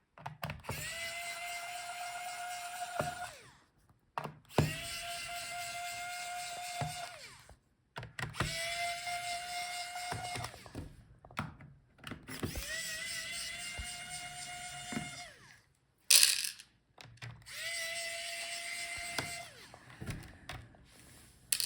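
Cordless electric screwdriver backing out the laptop's bottom-case screws: five runs of a steady motor whine, each two to three seconds long, with short pauses between them as it moves from screw to screw. There is a sharp click between the fourth and fifth runs.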